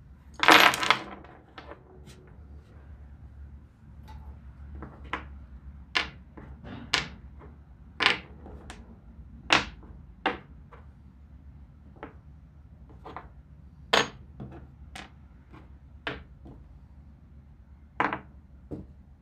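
Small metal parts clinking against a hard surface: a loud clatter about half a second in, then a string of single sharp clinks at irregular intervals as pieces are picked up and set down one by one.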